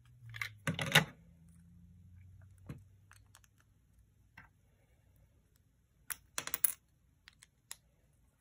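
LEGO plastic pieces clicking and knocking as a built LEGO assembly is handled and set down on a wooden table, loudest about a second in. Scattered single clicks follow, with a short run of clicks around six seconds in.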